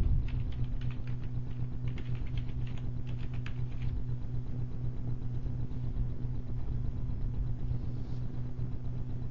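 Computer keyboard keys clicking as a username and password are typed, for about the first four seconds, over a steady low electrical hum.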